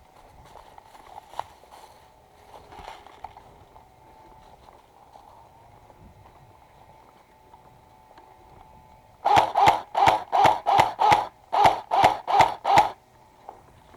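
A quick run of about eleven loud, sharp knocks, roughly three a second in two bursts with a short break between, starting about nine seconds in.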